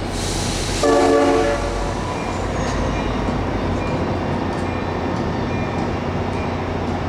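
A train horn sounds one short blast about a second in, over the steady low rumble of a train. A brief hiss comes just before the blast.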